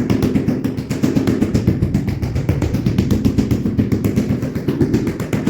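A machine motor running steadily, with a fast, even pulsing throughout.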